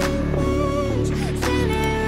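Background pop music: held notes over a steady bass line.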